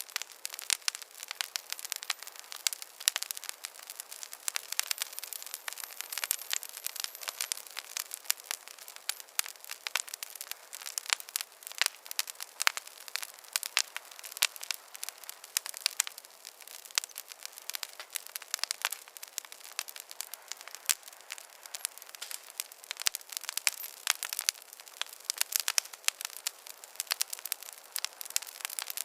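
Wood fire crackling in a fireplace: a dense, irregular run of small pops and snaps, with no low rumble beneath them.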